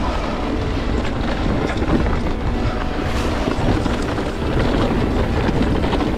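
Wind buffeting the microphone over the rumble and rattle of an electric mountain bike on Maxxis Assegai tyres riding a rough dirt trail, with many short knocks and clatters.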